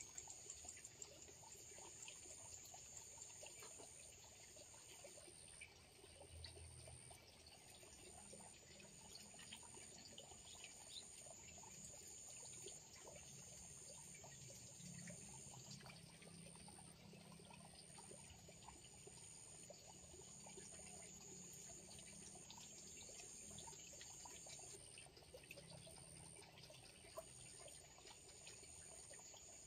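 Faint outdoor ambience of water trickling, with high-pitched insects buzzing: one repeats in short pulses about a second long, another holds a steady tone for several seconds at a time with short breaks.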